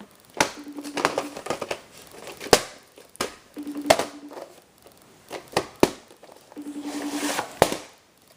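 Hands handling a VHS cassette and its plastic case: scattered sharp clicks and knocks with plastic crinkling, and short raspy buzzes of under a second that come back about every three seconds.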